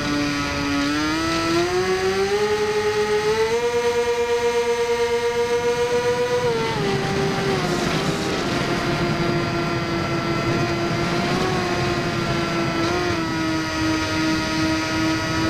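Electric motor and propeller of a Firebird Stratos RC plane whining, heard from on board. The pitch climbs over the first three seconds and holds high with a pulsing wobble. It drops back about six and a half seconds in and then runs steady at a lower throttle.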